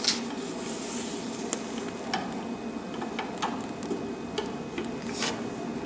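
A sheet of paper being slid and lined up in a vinyl cutter by hand, with light rustling and about half a dozen scattered small clicks over a faint steady hiss.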